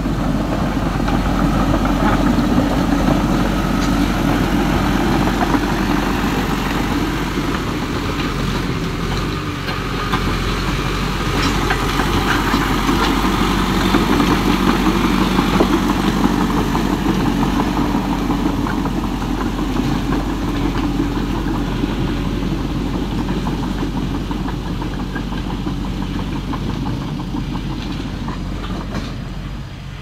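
Remote-control toy crawler bulldozer running steadily as it pushes gravelly sand with its blade, a constant engine-like mechanical drone.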